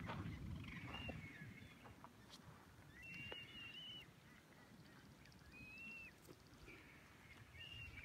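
Short, high, wavering calls from young frigatebirds in a nesting colony: about four calls a second or two apart, the longest lasting almost a second. A low rumble like wind on the microphone fades in the first couple of seconds.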